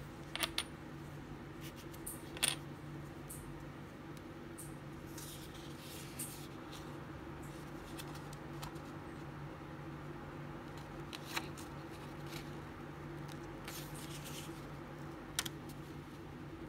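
Soft paper handling and rustling as a small memo pad, freshly glued along its edge with Mod Podge, is flexed and handled, with a few sharp clicks: two about half a second in, one louder at about two and a half seconds, and others near eleven and fifteen seconds. A low, steady hum runs underneath.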